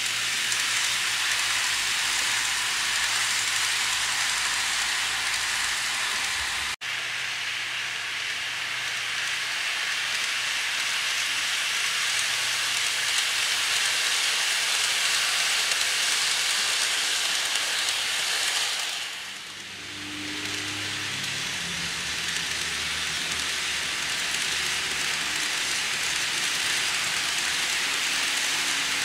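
N scale model Shinkansen trains running on Kato Unitrack viaduct track: a steady rushing rattle of small metal wheels on the rails over a faint low motor hum, briefly cutting out about seven seconds in.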